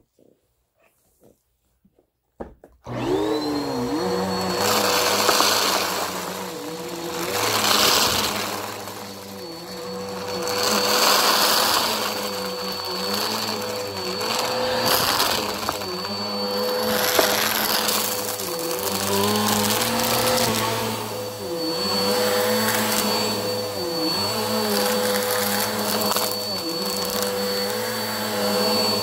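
Bissell PowerForce Helix upright vacuum cleaner switched on about three seconds in, then running with a steady whine, its sound swelling and easing every few seconds as it is pushed back and forth over the carpet picking up fluff.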